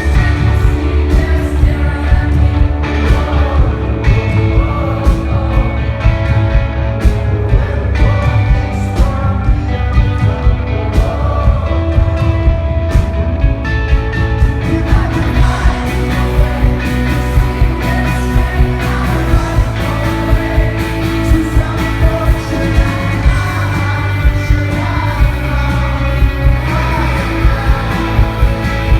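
A rock band playing live, with a male lead singer over drums, electric guitars and bass, and a steady drum beat throughout.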